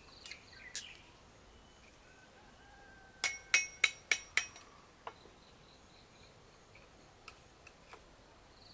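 Five quick sharp metal strikes with a ringing pitch about three seconds in, as a small child's ride-on toy is being repaired, with a few lighter clicks and knocks of handling before and after.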